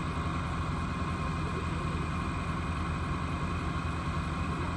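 Large vehicle engine idling steadily, a low, even drone with no change in speed.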